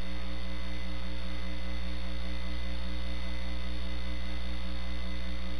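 Steady electrical mains hum with a buzzing row of overtones and faint hiss, from the chamber's microphone and sound system with no one speaking into it.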